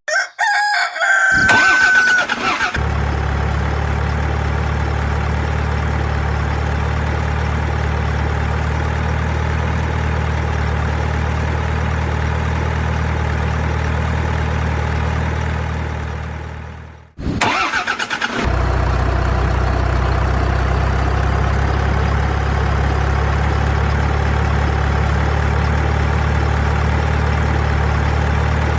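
Heavy vehicle engine running at a steady idle. It starts about three seconds in, fades away around the middle, and starts again a couple of seconds later. Just before it begins there is a short high wavering sound.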